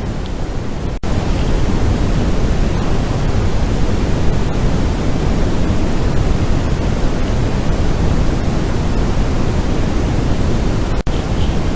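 Steady, loud rushing noise, strongest in the low end, with no pitched sound in it. It cuts out for an instant about a second in and again near the end.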